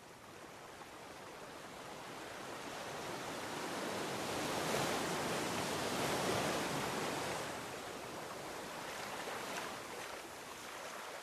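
Ocean surf rushing, swelling to a peak about halfway through and then easing off.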